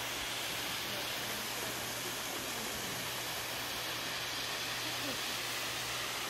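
Steady rushing hiss of a waterfall pouring into a pool.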